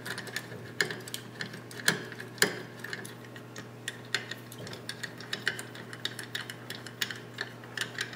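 Small screws being unscrewed from an aluminium slider carriage plate with an Allen driver and fingers: irregular light metallic clicks and ticks.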